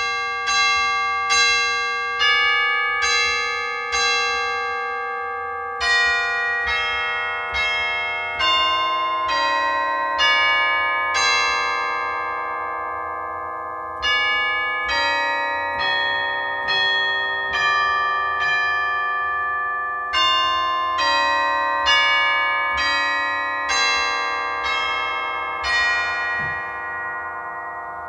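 Tuned bells, chimes of the church-bell kind, playing a slow melody: one note struck about every second, each ringing on and overlapping the next, the last dying away near the end.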